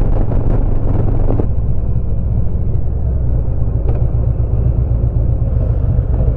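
Harley-Davidson V-twin motorcycle engine running steadily under way, a loud, even low rumble. A brighter rush of noise over it drops away about a second and a half in.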